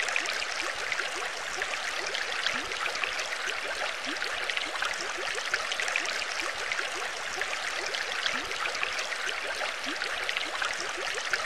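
Water trickling and bubbling steadily, with many small bubbles rising through it.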